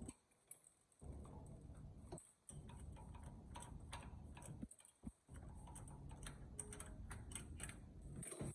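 Faint, irregular light clicks of hand tools on metal while the spark plugs are being taken out of the engine, over a low hum.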